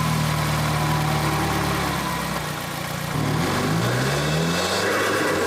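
Subaru WRX's turbocharged FA20DIT flat-four heard from inside the engine bay: revs hold, sag about two and a half seconds in, then climb again. The direct-injection tick dominates, with little of the turbo flutter the mic was placed to catch.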